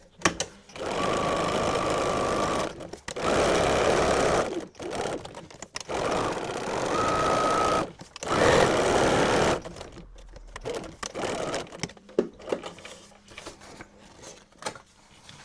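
Electric sewing machine stitching through paper in about five short runs of one to two seconds each, stopping briefly between runs, with a steady motor whine in some runs. From about ten seconds in, only faint clicks and handling sounds.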